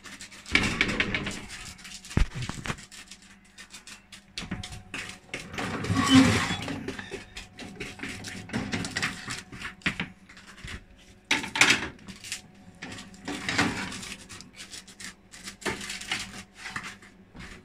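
Baking tray and kitchen utensils clattering as a tray of biscuits is taken out of the oven, with scattered knocks, clicks and scrapes.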